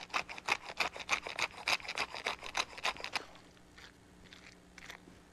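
Pepper mill grinding peppercorns: a quick, even run of gritty rasping clicks, about six a second, that stops a little over three seconds in.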